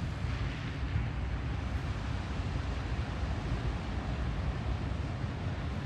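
A vehicle's engine running with a steady rushing noise over a low rumble, as it drives through floodwater.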